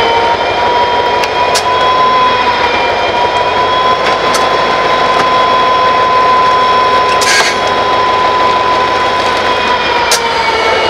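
EMD 16-cylinder turbocharged diesel of an SD40-2 locomotive running under power, with a steady high turbocharger whine, as the locomotive creeps over rerailing blocks. A few sharp clicks and a brief hiss about seven seconds in.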